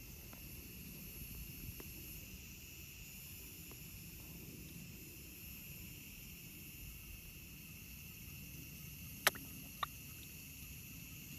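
Quiet outdoor ambience: a steady high insect drone over a low rumble, with two sharp clicks about half a second apart near the end.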